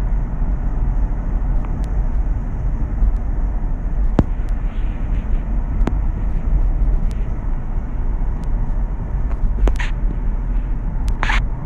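Steady low rumble of a car's tyres and engine heard from inside the cabin while driving, with a few short clicks along the way.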